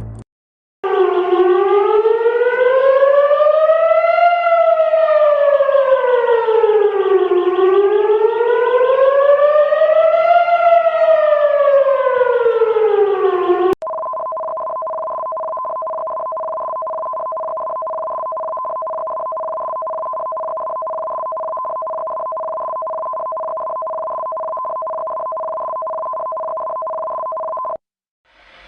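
Emergency alert siren tone rising and falling in a slow wail, two cycles of about six seconds each, cutting off suddenly about 14 seconds in. A steady two-pitch alert tone follows for about 14 seconds, quieter than the wail, and stops shortly before the end.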